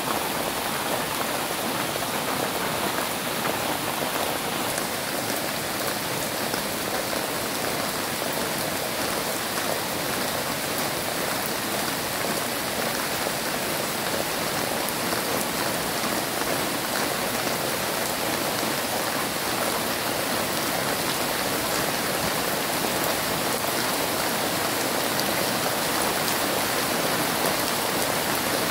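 Steady rain falling on dense leafy vegetation, an even, unbroken hiss of drops.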